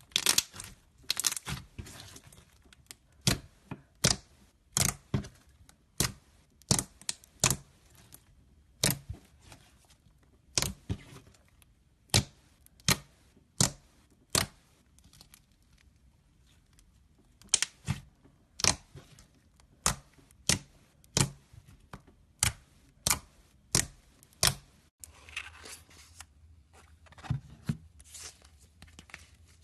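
Slime being squeezed and poked, giving a series of sharp, wet pops, roughly one or two a second. Near the end these give way to a softer, denser crackling.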